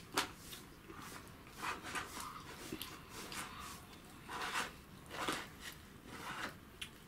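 Plastic construction-kit parts being handled and turned in the hands: scattered light clicks and short rustling scrapes, the sharpest click just after the start.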